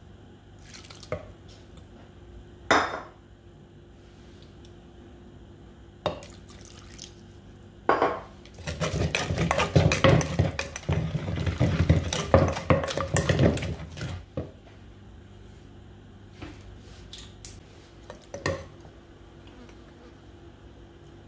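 Wooden pestle and spoon working wet salad ingredients in a wooden mortar: a dense run of knocks and wet mixing noises lasting about five seconds in the middle. A few single clinks and knocks come before and after it.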